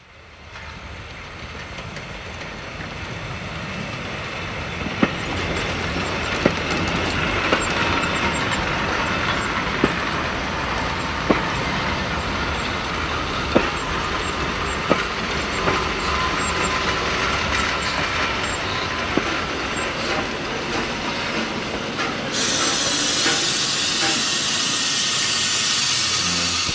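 Steam train hauled by Danish locomotive No. 563 rolling slowly past, growing louder as it nears, with sharp irregular clacks of the wheels crossing rail joints. Near the end a loud steady hiss of escaping steam sets in suddenly as the locomotive comes alongside.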